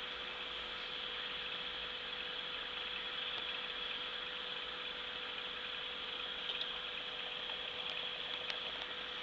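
Aquarium pump running with a steady hum and hiss, with a few faint ticks in the second half.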